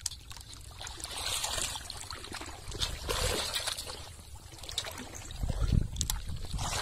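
Shallow pond water splashing and trickling in irregular bursts as a person moves about in it, with a heavier slosh about five to six seconds in.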